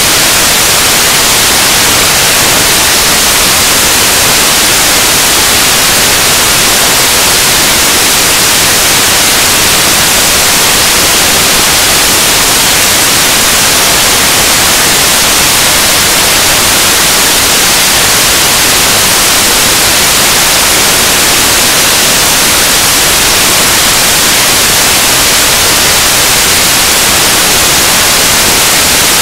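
Loud, steady static hiss, strongest in the treble and unchanging throughout, with no speech audible. It is the sign of a corrupted audio track: the presenters' talk is lost under noise.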